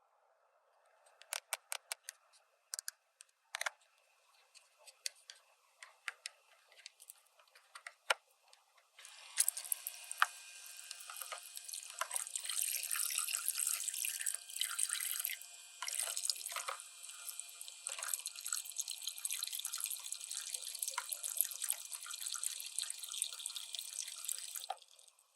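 Light plastic clicks and taps, then, about nine seconds in, water starts running steadily from the toy bathtub's faucet and stops just before the end.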